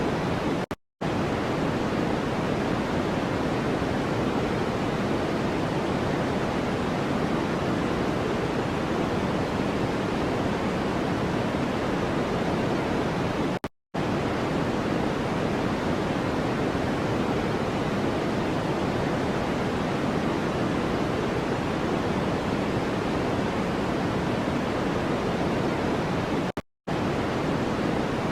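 Steady white-noise-style hiss, weighted toward the low end like pink noise, with an even, unchanging rushing sound. It cuts out to silence for a split second three times, about thirteen seconds apart.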